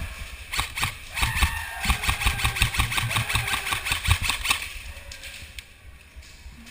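Airsoft electric guns firing rapid full-auto bursts, a fast run of sharp clacks with a motor whine under it. The firing dies away about two-thirds of the way through.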